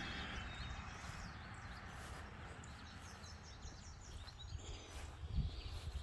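Outdoor ambience: a steady low background with faint birds chirping, including a quick run of short high chirps about halfway through. A few soft low thumps near the end.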